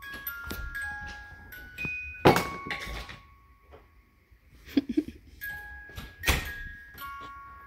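A melody of bell-like mallet notes, like a glockenspiel. Two loud thumps, about two seconds in and about six seconds in.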